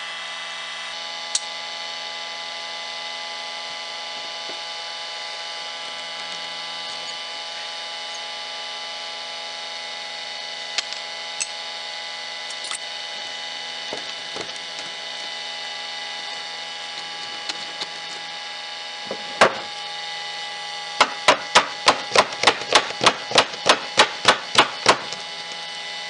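A wooden table leg struck to knock it free of its joint: one sharp knock, then a quick run of about fifteen sharp wooden knocks, three to four a second for about four seconds near the end. A steady hum runs underneath.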